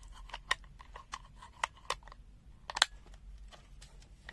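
Small plastic clicks and taps of a handheld multimeter's case and battery compartment being handled, irregularly spaced, with a sharper double click a little under three seconds in.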